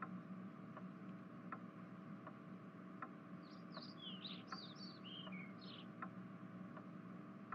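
Faint regular ticking, about four ticks every three seconds, over a low steady hum, with a bird twittering in a quick run of high chirps for about two seconds in the middle.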